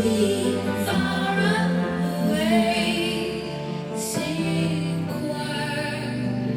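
Slow song with a woman singing over sustained low notes, played back through YG Acoustics Vantage 3 floor-standing loudspeakers driven by a Lyngdorf TDAI-2210 amplifier.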